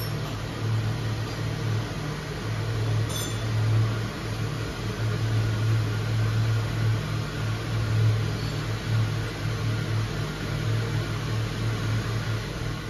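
Steady low mechanical hum of workshop equipment, with a single faint click about three seconds in.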